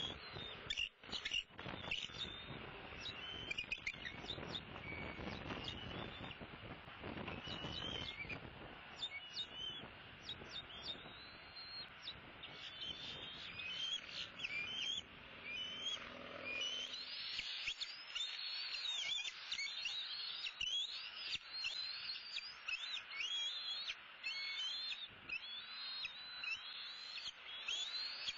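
Many short, high bird chirps and sweeping calls, thickening into a dense chatter in the second half. A rushing noise fills the first half and drops away past the middle.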